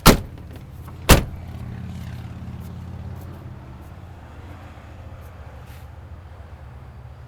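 Two car doors of a 2007 Mercury Mariner Hybrid slammed shut about a second apart. A steady low hum runs underneath.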